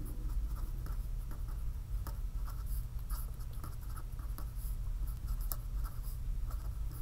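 Pen writing on a sheet of paper: a run of short, irregular scratchy strokes as words are written out, over a steady low hum.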